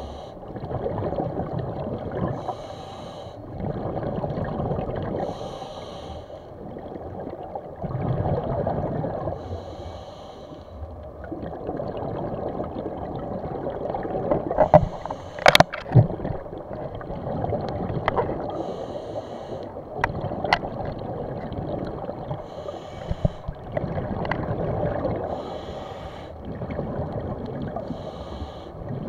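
A swimmer breathing in the water: slow breaths every two to three seconds, some with a hiss, over bubbling and water noise, with a few sharp clicks near the middle.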